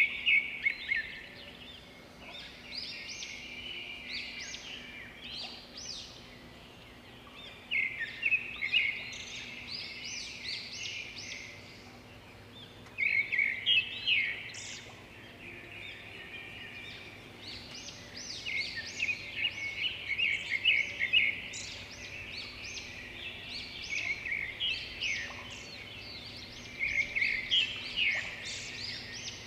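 Red-whiskered bulbul singing: bursts of quick, high phrases come every few seconds, with quieter stretches between them.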